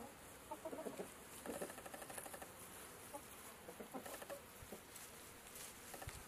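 Chickens clucking softly in short, scattered calls as they forage, with a light, fast pattering in the first couple of seconds.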